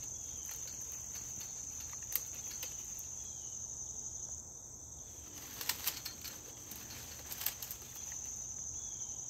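Steady high-pitched insect chorus, like crickets. A sharp click comes about two seconds in, and light clicks and rustling come between about five and a half and eight seconds in.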